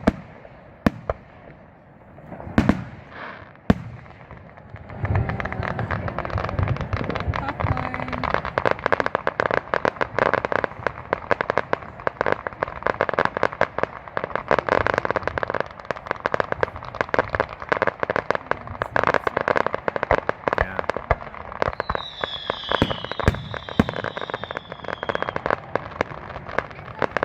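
Fireworks going off: a few separate loud bangs in the first seconds, then from about five seconds in a dense, continuous crackle of many rapid pops and bangs.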